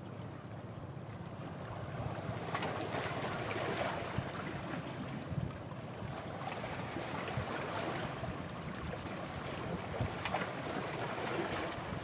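Sea waves washing in, with wind buffeting the microphone; the rush swells twice, a couple of seconds in and again near the end.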